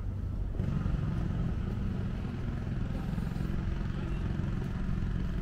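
A motor vehicle's engine running, growing louder about half a second in and holding steady over a low hum.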